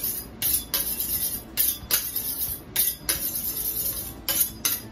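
A chef's knife being honed on a sharpening steel: a quick run of about ten scraping metal-on-metal strokes, some short and some longer.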